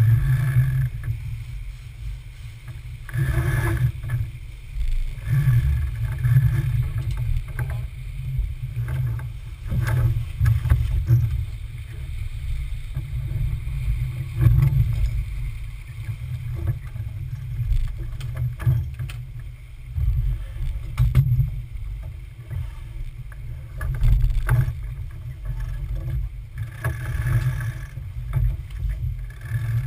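Smaragd sailboat under way: water rushing along the hull and a steady, gusting low rumble of wind on the microphone, with scattered knocks and clicks from crew and gear on deck.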